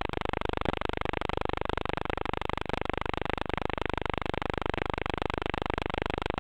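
Electric motor and propeller of a foamboard flying wing running steadily in flight, heard as a muffled, thin buzz with a faint wavering tone through the onboard FPV camera's microphone.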